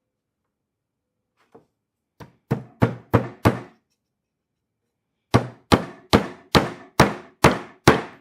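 Hammer driving a small nail into a wooden beehive frame: a light starting tap, then four quick strikes, a pause of about a second and a half, then seven more strikes at a steady pace of about two a second.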